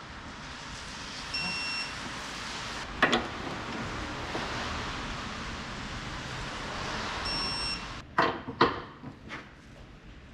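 Two short electronic beeps about six seconds apart with a steady rushing, machine-like noise running between them, then a sharp knock and two louder metallic knocks near the end.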